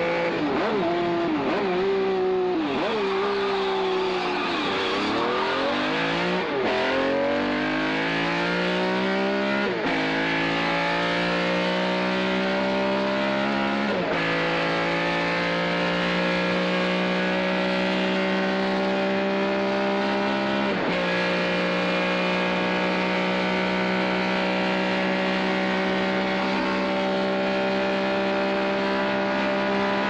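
Ferrari 275 GTB V12 engine driven hard. In the first seconds the revs fall and rise with brief lifts off the throttle. Then the engine pulls up through the gears, with quick shifts about ten, fourteen and twenty-one seconds in, and runs at a steady high speed to the end.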